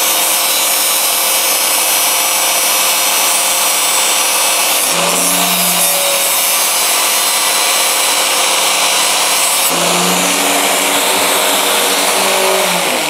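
Electric angle grinder running, a steel knife blade pressed hard against its spinning abrasive disc: a loud, continuous grinding hiss as the blade is ground away in a shower of sparks. Near the end the knife comes off the disc and the grinder runs free.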